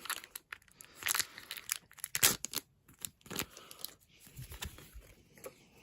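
Foil wrapper of a Pokémon booster pack being torn open and crinkled, a string of short irregular crackles.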